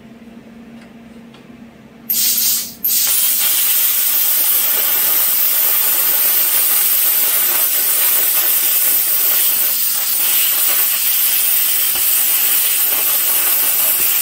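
Lotos LTP8000 plasma cutter cutting quarter-inch steel at 70 amps. About two seconds in, the arc fires with a loud hiss, breaks off for an instant, then hisses steadily through the cut.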